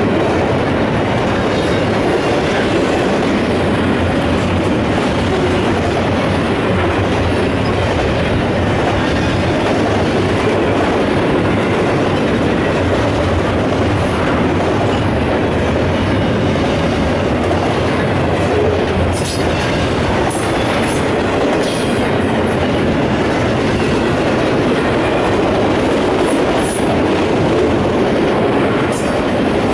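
Freight train cars rolling past at speed: a steady, loud rumble of steel wheels on rail from double-stack container well cars, then autorack cars. Short high-pitched squeaks from the wheels come in the last third.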